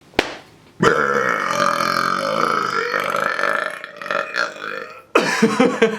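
A man's long, loud burp, held for about two seconds and then trailing off more weakly for a couple more, after a brief click at the very start.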